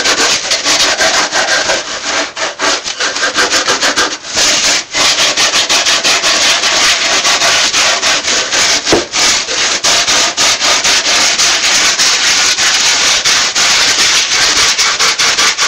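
Sandpaper gloves with 60-grit palms being rubbed back and forth over a Styrofoam armature: a loud, harsh, scratchy hiss in quick strokes with brief breaks between them.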